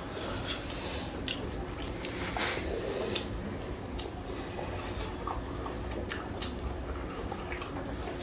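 Eating sounds: people chewing and tearing into roasted chicken, with scattered wet smacks and small clicks.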